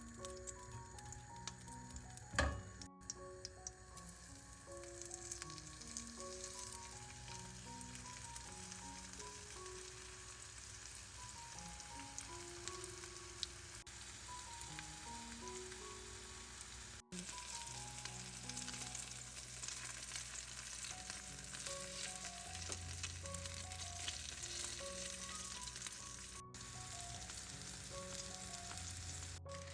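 Food frying in hot oil in a pan, a steady sizzle, under soft background music.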